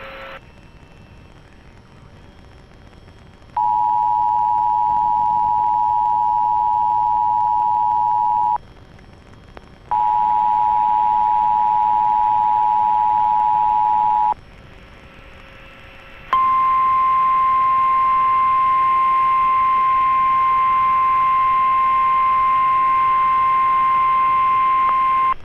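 Emergency Alert System two-tone attention signal sounding twice, about five seconds each, with a short gap of radio hiss between. Then comes the NOAA Weather Radio single-tone warning alarm, held steady for about nine seconds, announcing a tornado warning.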